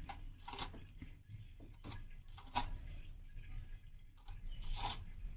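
A few faint, short soft taps over a low hum as dollops of yogurt are spooned onto the layered rice of a biryani in a steel pot.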